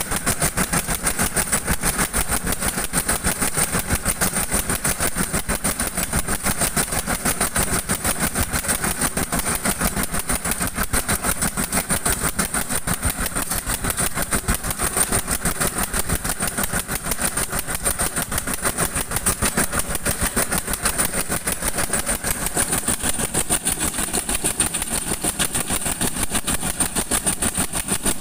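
An engine running steadily at an even, rapid firing beat, with no change in speed.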